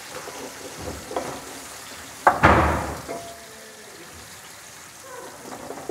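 Onions, garlic and ginger frying in hot ghee in an aluminium pot, stirred with a metal spatula. A little over two seconds in, one sudden loud knock of the spatula on the pot with a burst of sizzling that dies away within about half a second.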